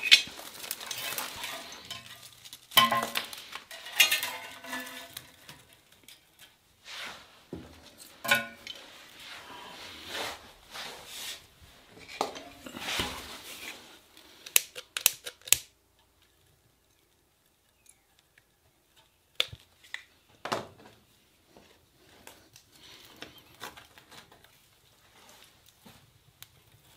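Clattering knocks and scrapes of kindling sticks and twigs being laid into a wood stove's firebox for the first half, then quieter, with a few isolated sharp clicks.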